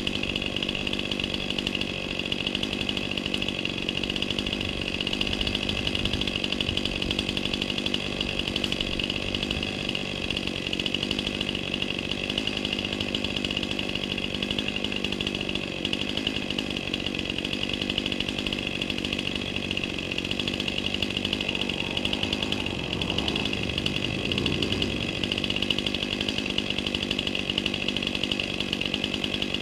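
Two-stroke chainsaw running steadily under throttle, its pitch holding level throughout.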